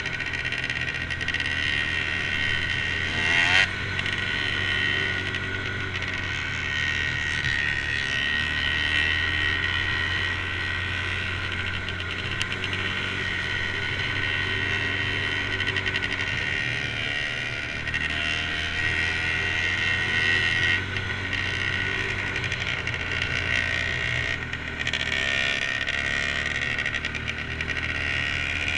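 Off-road vehicle engine running steadily at trail-riding speed, a constant drone with little change in pitch.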